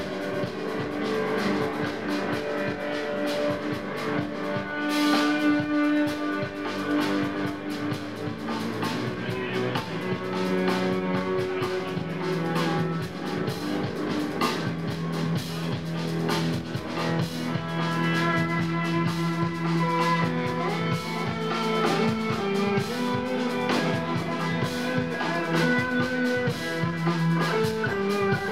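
Jazz-fusion band playing live: electric guitars over a drum kit and keyboards, with a steady beat.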